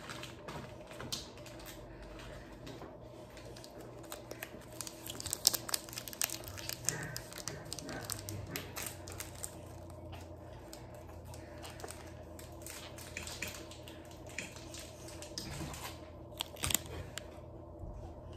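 Candy wrapper crinkling in irregular clusters of crackles, busiest in the middle and again near the end, over a steady low hum.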